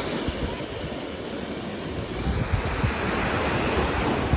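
Mediterranean Sea surf washing in, with wind rumbling on the microphone; the surf grows louder past the middle.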